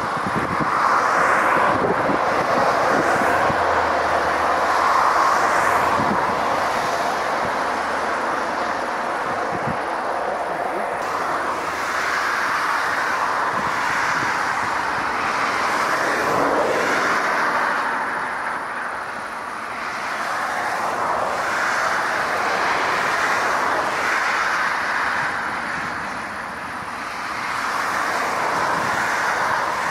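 Four-engine Airbus A380 jet engines running on the ground: a steady rushing jet noise that swells and eases several times.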